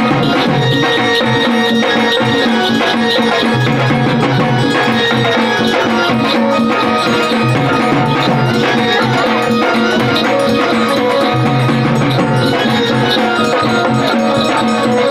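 Marathi gondhal folk music played loudly and without a break: drums beat a steady rhythm under a jingling shaker-like percussion and a held melodic line.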